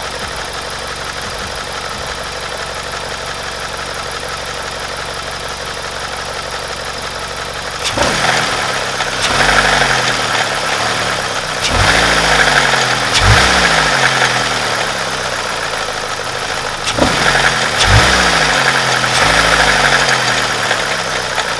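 BMW N42 four-cylinder petrol engine running with timing-chain rattle. It idles steadily, then from about eight seconds in it is revved in several short blips. The rattle is the sign of a failing exhaust-side VANOS camshaft adjuster.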